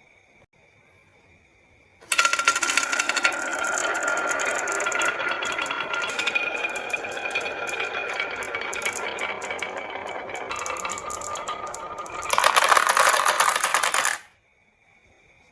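Marbles rolling and clattering down a marble run track, a dense continuous rattle that starts suddenly about two seconds in, grows loudest near the end, and cuts off abruptly.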